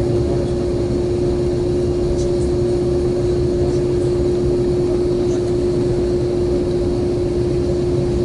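Cabin noise inside an Airbus A330-300 taxiing to the gate: a steady low rumble with one steady held tone over it.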